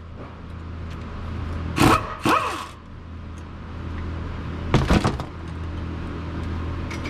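Impact wrench spinning out the rear brake caliper's 12 mm bolts in two short runs about two seconds in, its pitch sweeping up and down. A few sharp metal clanks follow about five seconds in as the loose caliper is handled. A steady low hum sits underneath.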